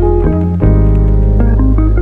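Background music: sustained deep bass notes with a melody of short pitched notes over them, the bass changing about half a second in.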